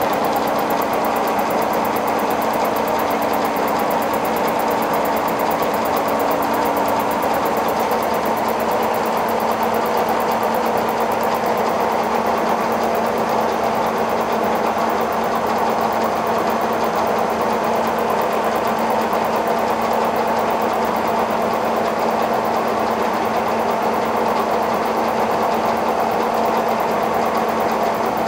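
Kearney & Trecker milling machine running a Sandvik face mill through a facing cut across a TIG-welded stainless steel plate, milling the weld flush. It makes a steady, even machine hum with a constant whine that does not change for the whole pass.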